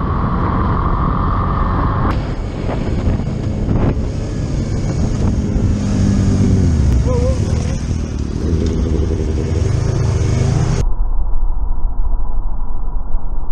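Motorcycle engine running with wind noise on a helmet-mounted camera. The engine's pitch rises and falls in the middle as the bike speeds up and slows. The sound changes abruptly about two seconds in and again near the end.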